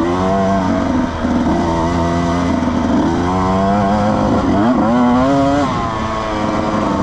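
Husqvarna 125 two-stroke dirt bike engine revving up and down as it is ridden, its pitch rising and falling with the throttle, with a quick dip and climb about four and a half seconds in.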